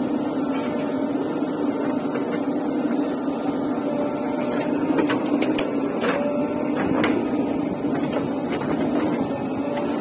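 JCB 3DX backhoe loader's diesel engine running steadily while its bucket dumps soil and clods into a steel tractor trolley. A few sharp knocks of clods landing in the trolley come a little past halfway.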